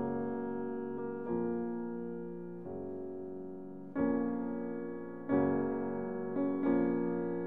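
Background music: slow piano chords, a new chord struck every second or so and each left to fade away.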